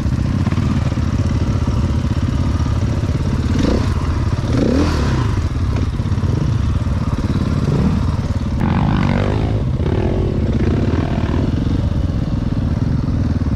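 Enduro dirt bike's engine running as the bike is ridden along a rough trail, the throttle opening and closing a few times, with the engine note rising and falling about four seconds in and again near nine seconds.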